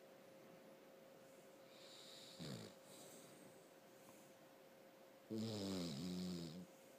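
Snoring: a short snore with falling pitch about two and a half seconds in, then a louder, longer snore of just over a second near the end.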